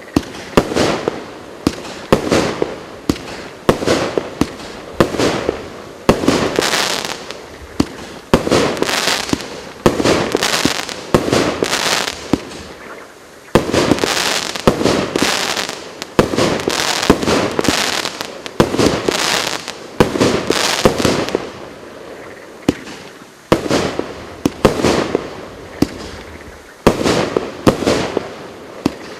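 GP508 "Strength" consumer fireworks battery firing a continuous volley of shots and aerial bursts: sharp bangs several a second, in rolling clusters with no break.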